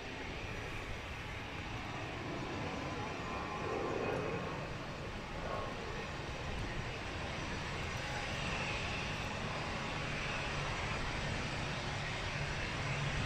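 Piston engines of the XP-82 Twin Mustang droning in flight, growing slightly louder as it comes closer.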